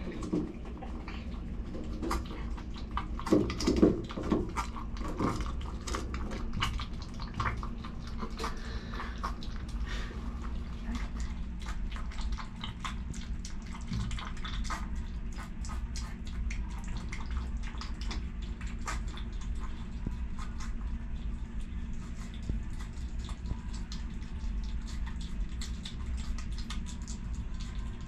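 Screaming hairy armadillo eating insects and mealworms from a bowl: a run of quick, irregular small clicks of its chewing and snuffling at the food, over a steady low hum.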